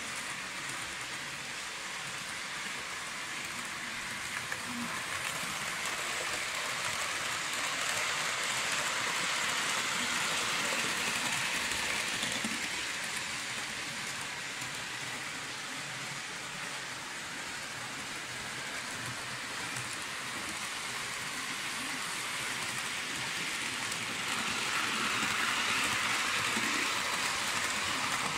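Märklin model trains running on metal track: a steady hiss that slowly rises and falls in loudness.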